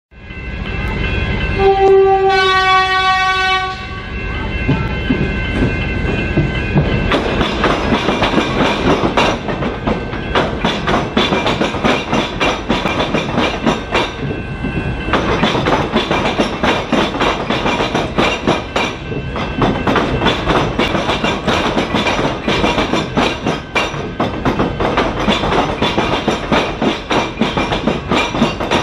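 Melbourne suburban electric train sounding its horn once, for about two seconds near the start, then running through the level crossing. Its wheels clatter in rapid sharp clacks over the tram square, the flat crossing where the tram tracks cut across the railway line.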